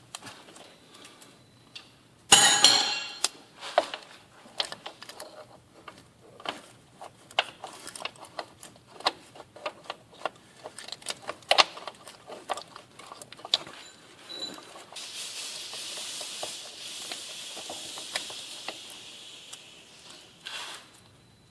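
Wrenches and bolts clinking and clicking against metal during hand work on a transfer case's mounting bolts, with a short loud metallic clatter a couple of seconds in. A steady hiss runs for several seconds near the end.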